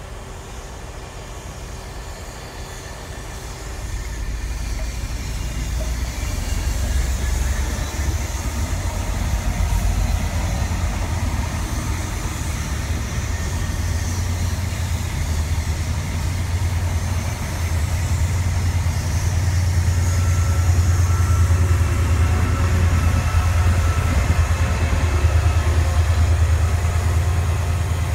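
Passenger train passing: coaches running over the track with a low rumble, pushed by a Class 68 diesel-electric locomotive under power at the rear. The rumble builds from about four seconds in and is loudest in the second half as the locomotive draws near.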